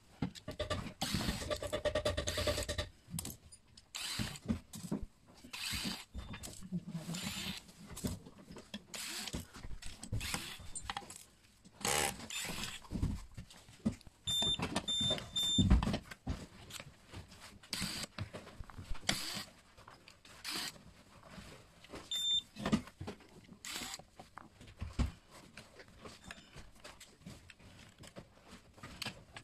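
Hard plastic safe-lid panels and parts being handled on a workbench, knocking and rattling at irregular intervals. About halfway through, the gun safe's electronic keypad gives three short high beeps, and a single beep follows some seconds later.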